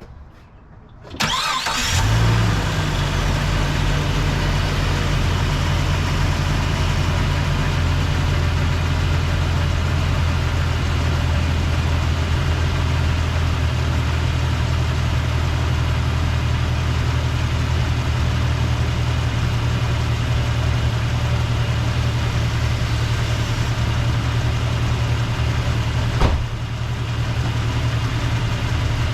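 A Jeep's engine cranked and starting about a second in, then idling steadily. A single sharp knock comes near the end, with a slight dip in the engine's level.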